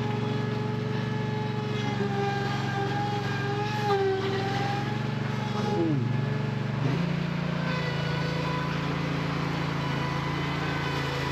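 An engine running steadily on a concrete pour, its note shifting and settling to a new steady pitch about six to seven seconds in.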